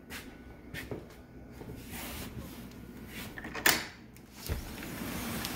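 A house door being handled and opened: several sharp latch clicks, the loudest about two thirds of the way in, then a low thump, after which a steady hiss comes in.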